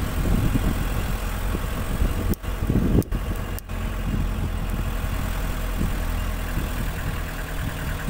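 Motor vehicle engine running steadily while travelling along a road, a low hum with road noise. The sound cuts out briefly three times, around two and a half to three and a half seconds in.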